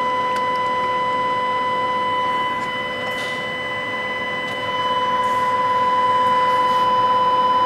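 A steady test tone over static hiss, played through a Stryker SR-955HP CB radio's speaker as it receives a tone-modulated test signal during a receive check; it gets a little louder about five seconds in.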